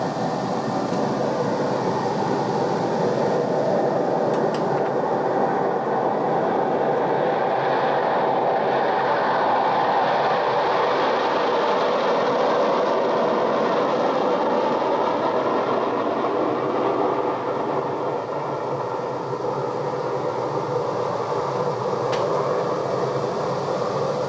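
Recorded sound effect played back from a stereo sound-effects cassette on a 1976 Sony TC-520CS cassette player: a long, steady rushing rumble that swells toward the middle and eases off in the second half, over a bed of tape hiss.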